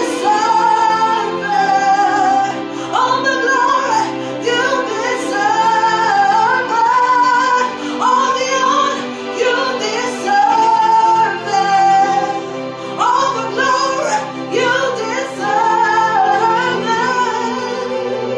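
Music: a woman singing a worship song, her voice gliding between held notes in phrases over a steady sustained accompaniment.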